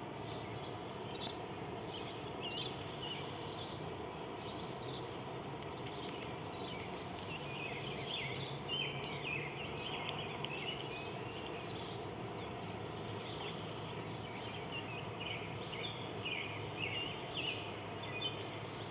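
Many small birds chirping, short scattered calls over a steady outdoor background hiss.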